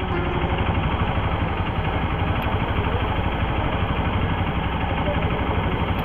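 Hero XPulse 200 4V's single-cylinder engine running steadily as the motorcycle is ridden, with a fast, even pulsing beat.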